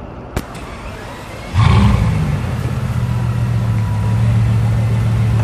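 Bugatti Veyron's 8.0-litre quad-turbo W16 starting up about one and a half seconds in: a sudden loud burst that briefly rises in pitch, then settles into a steady idle. A single sharp click comes just before it.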